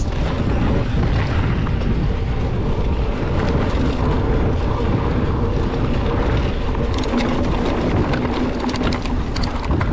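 Mountain bike rolling along a dirt trail: a steady rumble of wind buffeting the microphone and tyres on dirt, with a run of clicks and rattles from the bike near the end.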